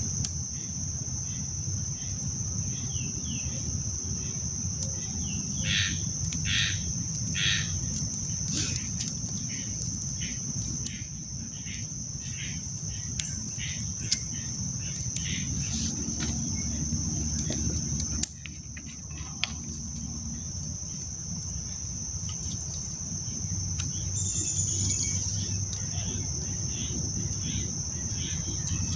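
Steady high-pitched insect trill, with scattered short bird chirps and clicks over it.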